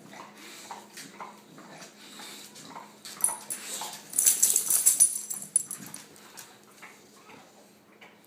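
Bulldog puppy making short, repeated dog sounds, with a louder burst of jingling and rattling from about three to five and a half seconds in.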